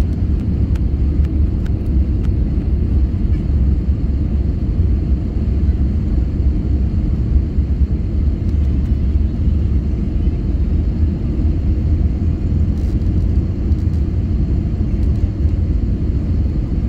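Steady low rumble of cabin noise inside an Airbus A320neo on final approach with flaps extended: airflow over the airframe and its Pratt & Whitney geared turbofan engines.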